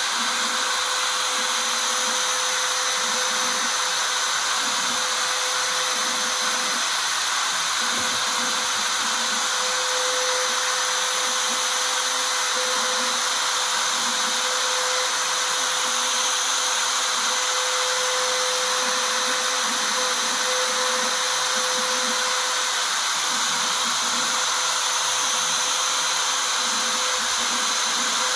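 CNC router spindle running at steady speed while its 1/4-inch V-bit engraves lettering into aluminium sheet: a constant high-speed whine over a steady hiss of cutting.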